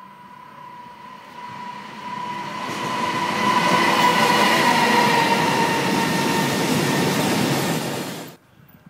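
Freight train of cement tank wagons, hauled by an electric locomotive, approaching and rolling past at speed. A steady high ring is there from the start, and the wagons' rolling noise grows louder and stays loud as they pass. The sound cuts off suddenly near the end.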